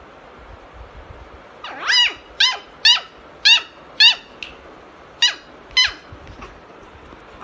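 Beagle puppy yipping at its ball: about seven short, high-pitched yips in a quick series, starting about two seconds in and ending about six seconds in.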